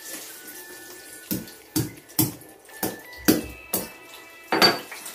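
Green chillies frying in hot oil in a pan, a steady sizzle, broken by about seven sharp knocks, the loudest near the end.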